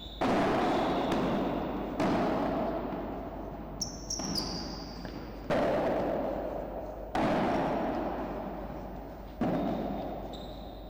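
Padel ball being struck by rackets and bouncing in a rally: six sharp hits a second or two apart, each ringing out in the enclosed indoor court. A brief high squeak comes about four seconds in.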